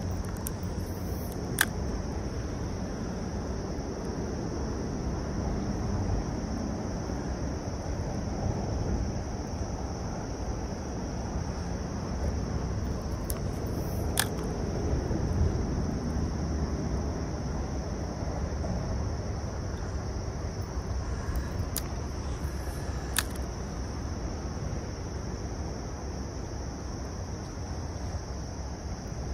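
Ambience of a flowing creek: a steady low rush of moving water under a constant high drone of insects. A few sharp single clicks stand out, about a second and a half in, midway and near the end.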